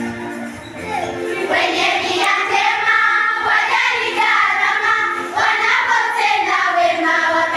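A choir of schoolgirls singing together, the voices swelling louder and fuller about a second in.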